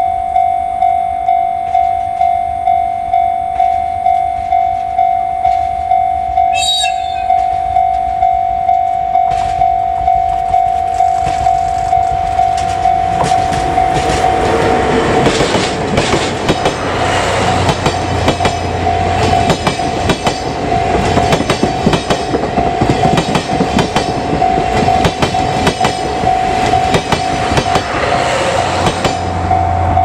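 Level-crossing warning bell ringing steadily at about two strikes a second while a DE10 diesel locomotive approaches. The locomotive gives a short horn blast about seven seconds in. From about thirteen seconds the locomotive and its 12-series coaches pass close by, with wheels clattering over the rail joints and the crossing bell still ringing under the noise.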